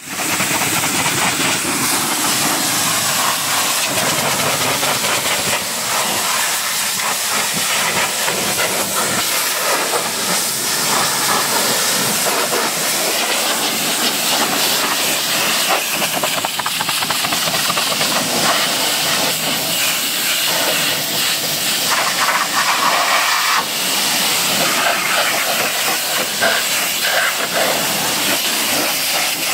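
Pressure washer's high-pressure water jet spraying onto a car's body panels, a loud steady hiss that wavers as the spray moves over the car.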